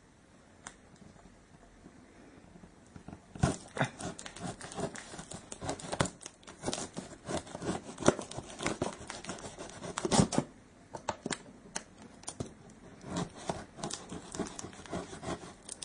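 Scissors cutting and scraping through sellotape on a cardboard box, with tape tearing, in quick scratchy strokes. The sound starts about three seconds in and stops briefly about two-thirds of the way through before going on.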